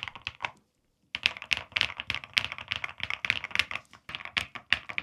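Typing on an Epomaker RT82 75% mechanical keyboard with Creamy Jade switches and PBT keycaps: a quick, crisp run of keystroke clacks. It breaks off for about half a second near the start, then carries on.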